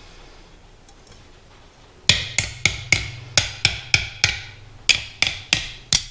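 Hammer blows forging a steel taper held in tongs: about a dozen sharp, ringing strikes starting about two seconds in, roughly three a second with a short pause midway.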